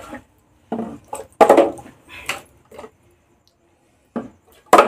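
Small plastic bottle, partly filled with liquid, being flipped and landing on a tabletop: a series of about six short knocks and thuds, the loudest about a second and a half in and just before the end.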